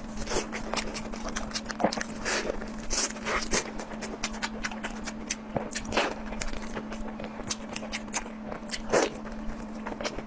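Close-miked eating: irregular wet chewing, smacking and clicking sounds, over a steady faint hum.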